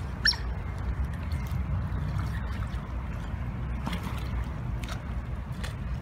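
A steady low rumble of wind on the microphone, with a short high squeak about a third of a second in and a few faint clicks later on.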